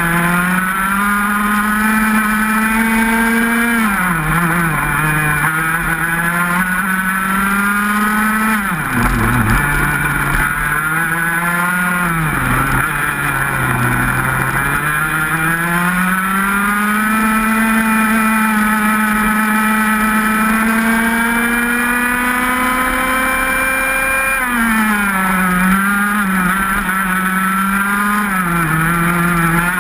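125 cc two-stroke racing kart engine running flat out and heard from onboard. The revs climb steadily along the straights and drop sharply into the corners. The deepest drop comes about nine seconds in, and the longest climb runs from about fourteen to twenty-four seconds.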